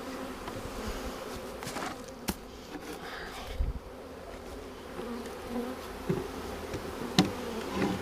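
Honey bees from freshly installed packages buzzing steadily around the hive, with a couple of sharp clicks.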